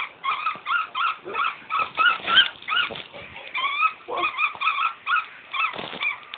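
Common kestrel giving a rapid run of short, high, whining calls, about four a second with brief pauses, while mantling over its food.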